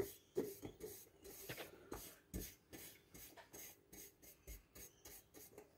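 Paintbrush strokes on a rusty perforated steel plate as rust converter is brushed on: a quiet run of short, irregular scrubbing strokes, about three or four a second.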